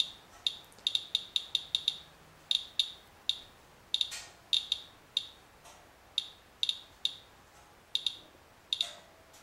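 Radalert Inspector Geiger counter chirping at random intervals, about three a second, one chirp per detected count. It is counting radiation from a rain-wipe sample taken off a vehicle, at a rate the display shows as about 0.07 mR/hr, which the owner takes for several times normal background.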